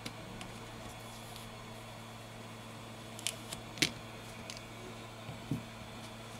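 Quiet handling of a phone's plastic midframe: a few light clicks, the sharpest just past the middle, and a soft knock later, as a foam gasket is peeled off and the frame is moved, over a steady low hum.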